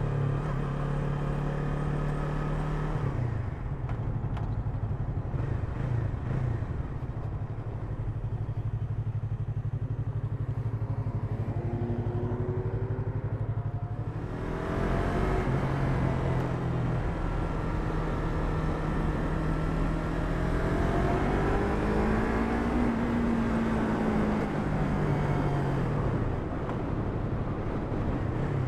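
Yamaha MT-03's parallel-twin engine running under way, its pitch rising and falling several times as the bike accelerates and eases off. Wind rushes on the microphone, more strongly from about halfway.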